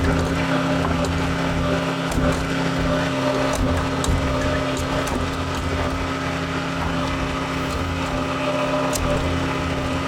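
John Deere 410 backhoe's diesel engine running at a steady speed, with a few faint clicks over it.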